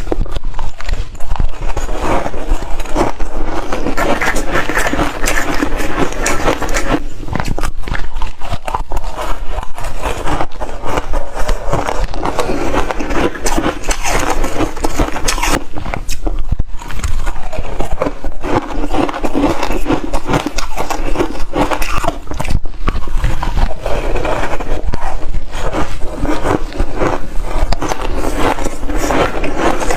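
Close-miked bites and chewing of hard frozen ice, a dense run of crunches going on without a break.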